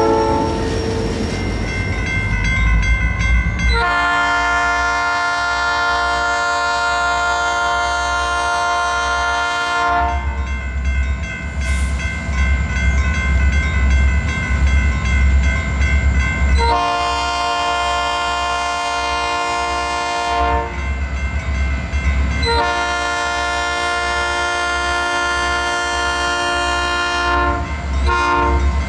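New-cast Nathan P3 three-chime locomotive horn sounding a steady, mellow chord in several long blasts, with a brief blast near the end. A train's low rumble fills the gaps between blasts.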